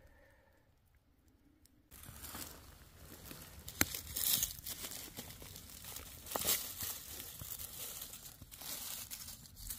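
Quiet for about two seconds, then dry fallen beech leaves rustling and crackling as a hand brushes through the leaf litter around a porcino, with a couple of sharp snaps.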